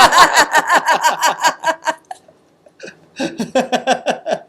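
People laughing in two stretches of quick, repeated pulses, the second starting about three seconds in.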